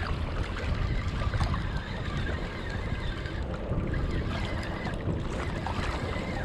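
Wind rumbling on the microphone over a steady wash of river water.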